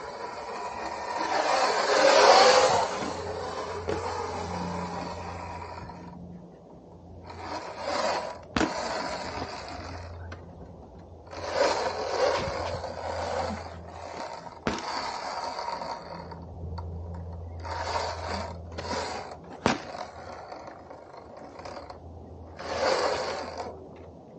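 Electric Sur-Ron Light Bee S dirt bike on the move: its motor and new 219 chain drive give a steady low hum with mechanical chain noise. Several short rushes of noise and a few sharp clicks break in.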